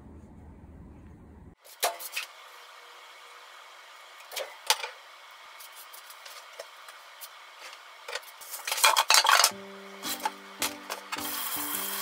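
Kitchen handling sounds: a few sharp knocks and clatters, then a louder, longer clatter about nine seconds in. Background music of repeated short notes starts about ten seconds in.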